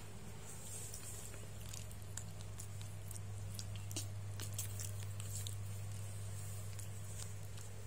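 Baby monkeys eating, with scattered small clicks and smacks of chewing and handling food. A steady low hum runs underneath.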